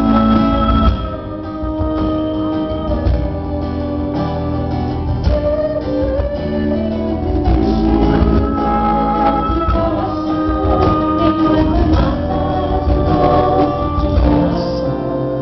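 Live acoustic music: acoustic guitars accompanying male and female voices singing long held notes in harmony.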